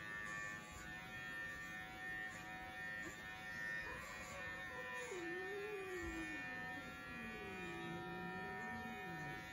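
Quiet VGR V-098 cordless pet clipper running steadily with a thin electric buzz as it shears a long-haired cat's fur. From about four seconds in, a low wavering moan rises and falls over it for several seconds.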